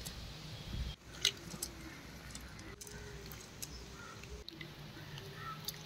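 Hand squeezing and kneading tamarind in water in a steel bowl: faint soft squelching and sloshing, strongest in the first second, with a few light clicks and faint short chirps behind it.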